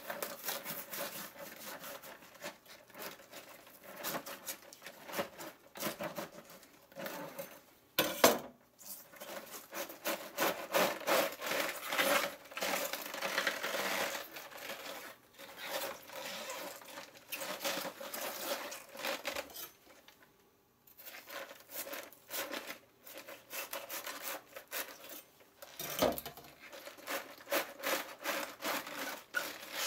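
Kitchen knife sawing into the thick root end of a napa cabbage, then the head being ripped apart by hand: crisp crunching and crackling of the stalks and leaves, with one loud snap about eight seconds in.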